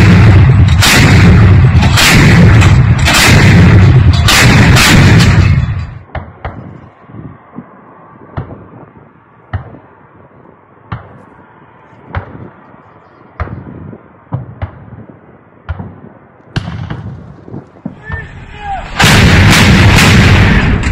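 57-mm S-60 automatic anti-aircraft guns firing in rapid bursts of loud reports for about the first six seconds. After that come fainter single reports about once a second. Loud rapid fire starts again near the end.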